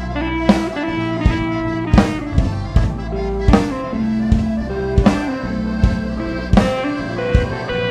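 Instrumental band music with no singing: drum kit and guitar over a sustained low bass, the main drum hits falling at a steady beat about every three quarters of a second.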